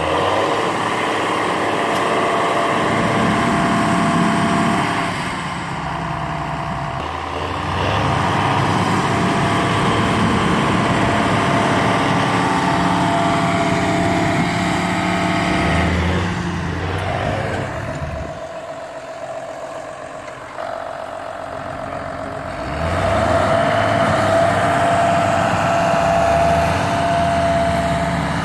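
Diesel tractor engines working hard under load as a John Deere tractor stuck in mud is towed free on a tow line. The engine note rises and falls, and it eases off for a few seconds about two-thirds of the way through before coming back up.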